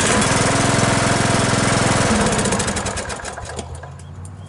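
Briggs & Stratton 15.5 HP riding lawnmower engine turning over fast and evenly on its electric starter, then winding down and fading about two and a half seconds in. The valves have just been set back into spec, so the starter easily overcomes compression.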